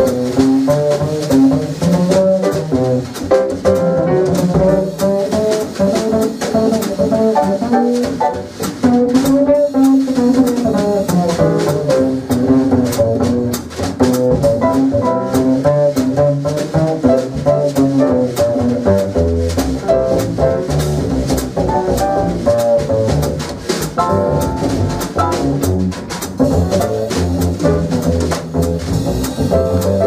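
Small jazz group playing live: drum kit with cymbals and an upright double bass under a melodic lead line.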